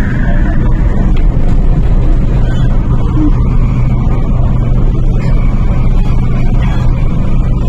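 Cabin running noise of an MTR Tung Chung Line K-Train (Hyundai Rotem electric multiple unit) travelling at speed: a steady, loud low rumble of the train with a faint low hum beneath it.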